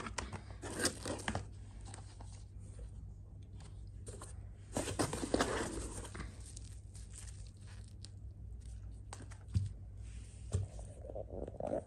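Plastic wrapping crinkling and cardboard box flaps rustling as products are handled and lifted out of a shipping box, in two bursts, about a second in and about five seconds in, with a couple of short knocks near the end.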